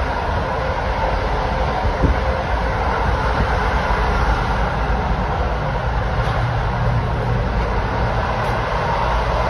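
Steady running noise of a moving passenger train heard from inside a coach: a low rumble of wheels on rails with a rushing hiss, and a single sharp knock about two seconds in.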